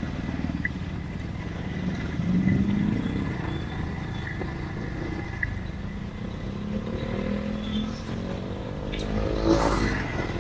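Motorcycle riding in traffic: its engine runs steadily with a low rumble while other motorcycles and trucks pass close by. A louder vehicle goes past with a rising engine note about nine seconds in.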